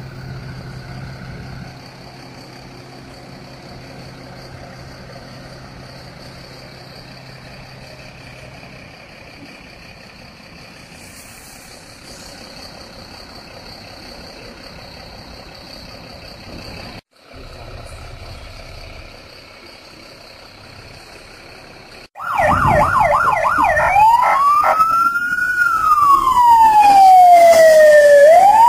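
Fire engines' diesel engines running steadily at low level. About 22 s in, a fire engine's siren starts loudly: a rapid warble for a couple of seconds, then a slow wail rising and falling, with a second, fainter siren sounding higher above it.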